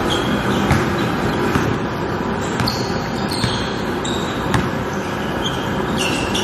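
Basketball bouncing on a hardwood gym floor, a few separate thuds, with sneakers giving short high squeaks as players cut and stop, over a steady background rumble.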